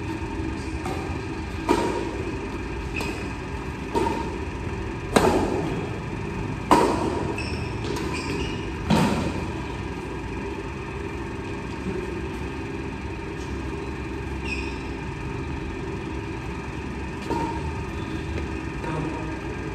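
Badminton rackets striking a shuttlecock in a rally: a string of sharp smacks every second or two, with a short echo off the hall walls. The hits are loudest in the first half and fainter later, over a steady low hum.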